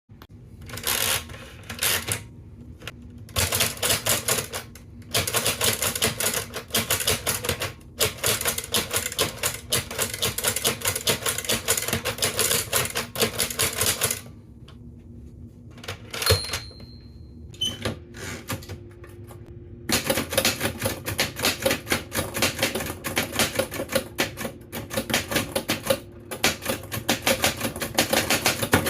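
Keys clacking rapidly on manual typewriters, a 1970s Mark toy typewriter and a Remington, in two long runs of typing. A pause about halfway through holds a single clear ringing tone.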